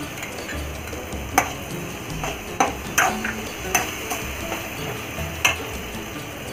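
A steel slotted spoon clinking and scraping against a steel kadai while ketchup is stirred into sautéed onions, chillies and capsicum: about eight sharp, lightly ringing clinks at uneven intervals.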